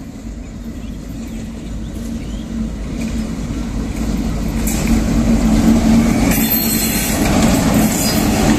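WDM3D diesel-electric locomotive running light, its ALCO 16-cylinder diesel engine drone growing steadily louder as it approaches and passes close by, with wheel-on-rail noise rising in the second half.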